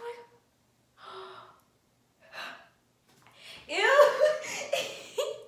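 A teenage girl's wordless vocal reaction: a couple of short gasps, then a louder cry that rises in pitch about three and a half seconds in, on having just cut off her ponytails.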